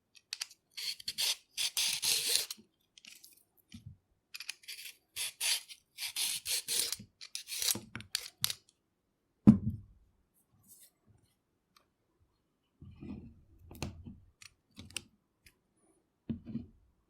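Hand peeler scraping along a carrot in a quick series of short strokes. About halfway through the strokes stop and there is one loud thump, followed near the end by a few softer, duller knocks.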